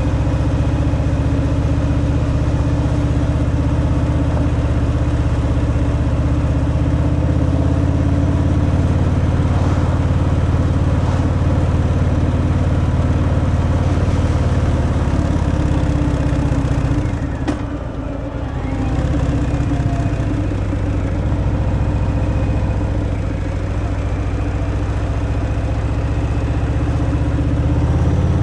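Harley-Davidson Fat Boy's V-twin engine on its stock exhaust, running with a steady low rumble. About two-thirds of the way through, the engine note drops briefly, then picks back up.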